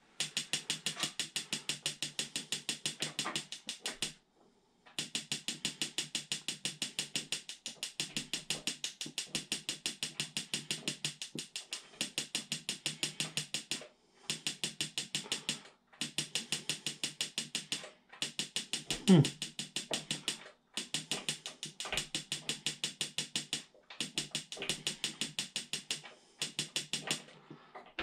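Battery-powered electronic spark igniter of a Mr. Heater Buddy Flex propane heater ticking rapidly in repeated runs of two to four seconds with short pauses, while the pilot fails to light; the owner suspects it is starving for fuel. A brief louder sound with a falling pitch comes about two-thirds of the way through.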